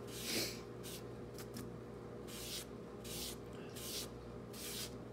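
Fingertips rubbing black pastel powder across a paper building print mounted on card, weathering it: a run of short, soft, scratchy strokes, roughly one a second.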